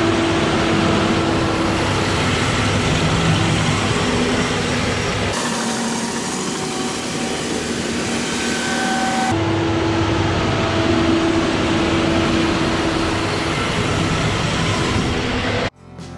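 Tractor engine running steadily with a continuous mechanical drone. For about four seconds in the middle the low rumble drops away and a brighter hiss takes over.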